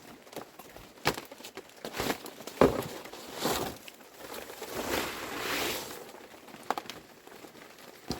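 Irregular knocks and taps from objects being handled, with two longer rustling swells in the middle.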